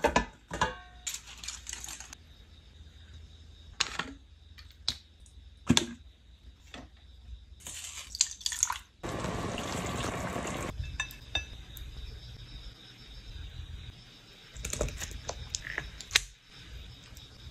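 Frying-pan cooking sounds: scattered clinks and knocks of a pan, lid and utensils, and liquid poured into the pan for about a second and a half a little past the middle.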